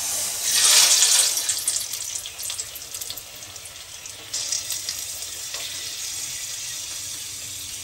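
A batter-coated karpooravalli (Indian borage) leaf is dropped into hot oil in a steel kadai. It gives a loud burst of sizzling about a second in, then settles into a steady deep-frying sizzle that swells again a little past halfway.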